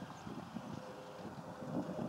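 Wind buffeting the microphone, an uneven gusty rumble, with a faint steady hum underneath.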